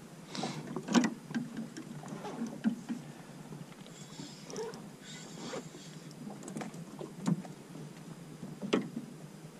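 Scattered knocks and taps of fishing gear being handled in a small aluminium boat, the loudest about a second in, with a soft rustle from about four to six seconds.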